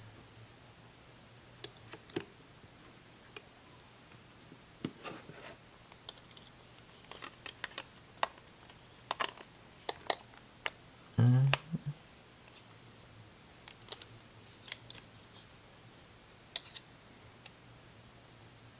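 Plastic parts of a screen-protector installation tray being handled and fitted together, making scattered light clicks and taps at irregular intervals. About eleven seconds in comes a short, louder, low-pitched sound.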